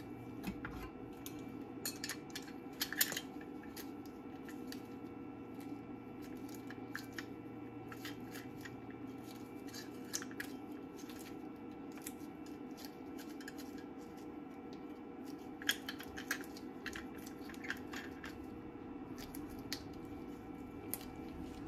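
Scattered clicks and light knocks of a resin 3D printer's metal build plate being taken off its angle bracket and fitted onto a wash station's bracket, with a cluster of sharper clicks about two to three seconds in and another near the three-quarter mark. A steady low hum runs underneath.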